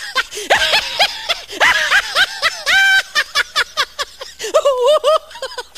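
A person laughing hard: a long run of quick, high-pitched giggles and snickers, with a held squeal about three seconds in.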